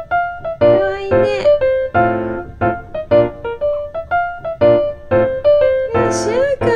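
Background music: a piano playing a light melody of separate held notes, about two a second.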